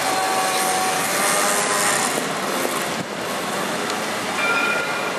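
Alstom Citadis 302 tram rolling slowly into a station stop: a steady hiss of running noise with a faint whine, and a thin high steady tone near the end.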